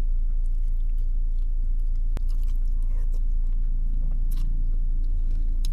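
A person chewing and eating meatball soup, with a few faint clicks and sips from a metal spoon, over a steady low hum inside a car.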